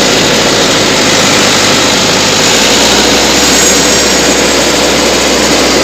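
Rice combine harvester running, a loud, steady machine noise with a faint hum under it.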